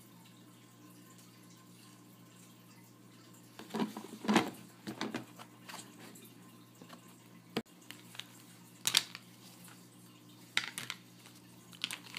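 Hard plastic clicking and knocking as a plastic toy bucket's red lid is pried open, a dense cluster of snaps and rattles about four seconds in. Scattered single clicks follow as plastic play-dough molds are handled.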